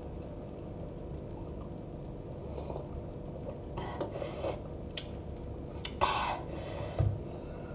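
A person eating cup noodles: mouth and eating noises with short breathy bursts, the loudest about six seconds in as her mouth opens wide, and a low knock against the table near the end.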